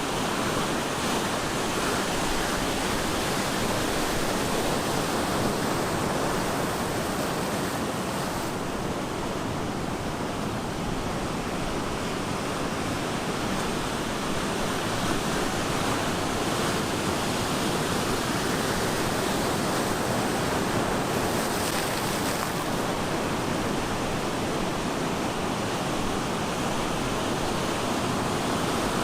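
Ocean surf on a beach: a continuous rush of breaking and washing waves, swelling and easing gently every few seconds.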